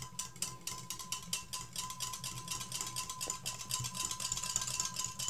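Wire balloon whisk beating a thin mango-and-yogurt lassi mixture in a glass bowl, its wires clicking against the glass in a fast, even rhythm of about eight strokes a second.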